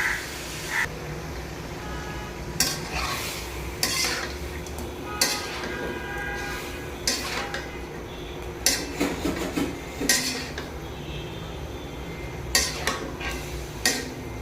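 A metal utensil stirring in a cooking pan, scraping and clinking against the metal at irregular intervals, some strikes ringing briefly.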